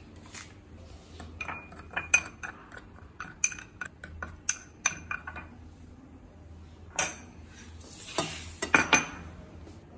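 Steel spoon stirring spice powder in a small glass bowl, clinking against the glass in quick irregular taps. Near the end a steel plate is knocked and slid across the counter with a scrape and a few sharp clinks.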